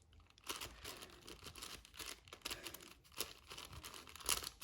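6x6 Rubik's Cube being turned through an algorithm, its plastic layers clicking and rattling in a quick, irregular run of small clicks.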